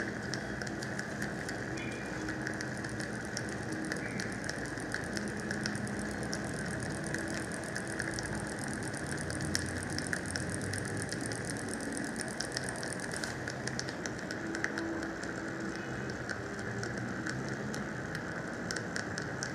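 Rapid, steady ratchet clicking as a threaded screw-type bone expander is turned into the split alveolar ridge to widen it, over a steady hiss. The clicking thins out about two-thirds of the way through.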